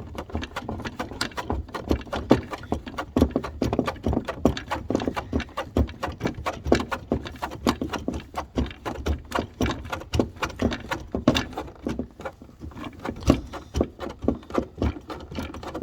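Rapid, irregular metallic clicking and ticking, several clicks a second, as a hand threaded-insert setting tool is unscrewed from a freshly set 6 mm insert.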